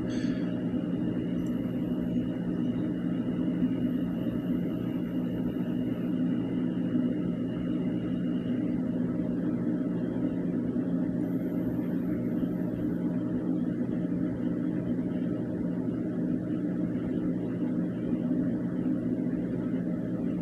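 A steady low machine hum with a faint high whine over roughly the first half, which then stops.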